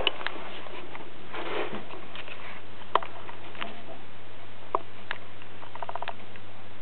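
Quiet sounds of a boa constrictor swallowing a mouse: scattered small clicks and ticks and a short rustle about a second and a half in, over a steady hiss and low hum.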